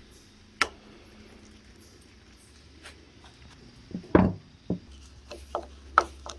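Small hand tools clicking and knocking against a Johnson/Evinrude power trim pump being taken apart. There is one sharp click near the start, a heavier clunk about four seconds in, then a run of light clicks.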